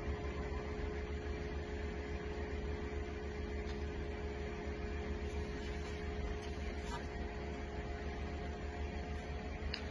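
Steady background hum with a low rumble and two faint steady tones, like a running machine, with an occasional faint tick.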